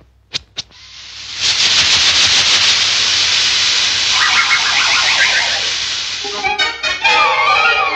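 Cartoon sound effect of air hissing loudly out of an inflatable rubber ring's valve, with a wavering whistle over the hiss midway. Two short knocks come just before the hiss starts.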